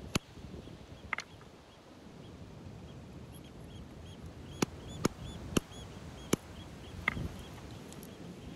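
Rock knocked against rock to split a fossil-bearing concretion: several sharp stone-on-stone clacks, one at the start, a pair about a second in, and a run of five in the second half.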